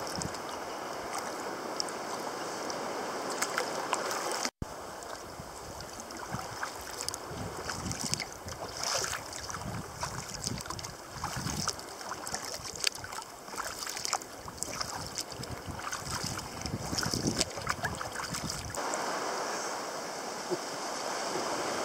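Water lapping and splashing around a sea kayak's hull as it moves through shallow sea water, with some wind on the microphone. The sound cuts out for a moment about four and a half seconds in.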